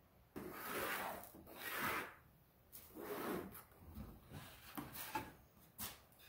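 Pencil scratching and wood rubbing on a pine board as it is marked out along a wooden straightedge: several long strokes in the first three seconds, then shorter scrapes.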